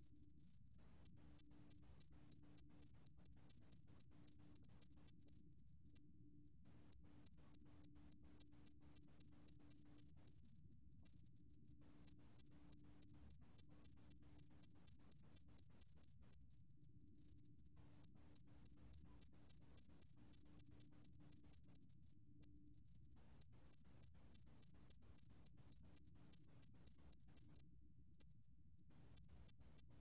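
새금빛종다리, a small golden-coloured cricket, singing in a recording made at 20 °C. The high, thin song alternates rapid strings of short pulses with continuous trills about a second and a half long, one trill roughly every five to six seconds.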